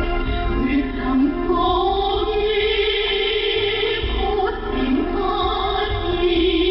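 Choir singing a song from a Korean revolutionary opera over instrumental accompaniment, received as a shortwave radio broadcast, so the sound is narrow and muffled with nothing above the low treble.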